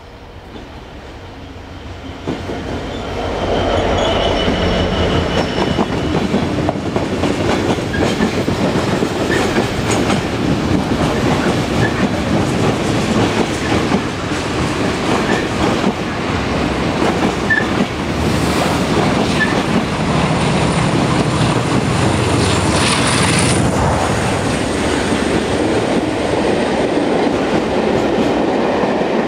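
Two trains passing close below at once: a Class 47 diesel locomotive with its Sulzer engine running as it hauls a rake of coaches, and a loaded coal train on the other line, its wagon wheels clattering over the rail joints. The sound builds over the first few seconds and then stays loud, with a brief high wheel squeal about two-thirds of the way through.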